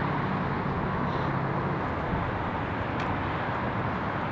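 Steady outdoor traffic noise: a constant low rumble and hiss of vehicles.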